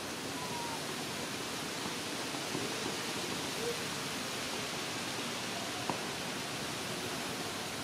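Steady, even outdoor hiss with no clear source, broken by a few faint short squeaks and one sharp click about six seconds in.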